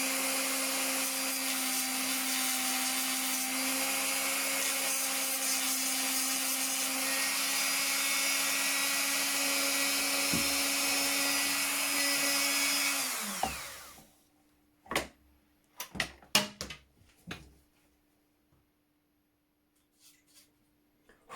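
A power tool's electric motor running steadily, then winding down with a falling pitch about 13 seconds in. A few sharp clicks and knocks follow.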